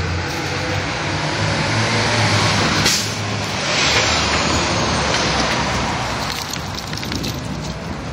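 BMW M6 convertible's V10 engine revving as the car drives past, swelling to its loudest about three seconds in, with a sharp crack at the peak and a falling pitch as it pulls away, then fading under other street traffic.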